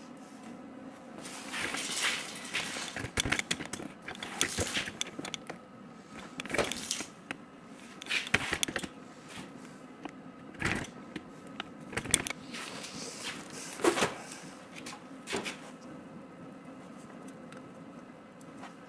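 Metal tools and parts being handled at a lathe: irregular clinks, knocks and short scrapes as pieces are picked up and set down, over a faint steady hum.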